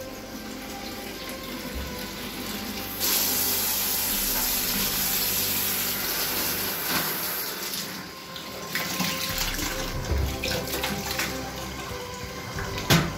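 Tap water running in a thin stream into a plastic bucket: a steady splashing hiss that grows louder about three seconds in and eases again after about seven seconds. There is one sharp knock near the end.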